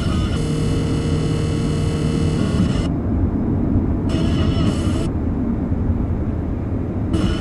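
Radio receiver playing loud interference noise: a steady low rumbling hiss with a buzzy, many-toned whine on top. The whine cuts out abruptly twice, for a second or two each time, and a faint steady hum tone sounds through the first two seconds.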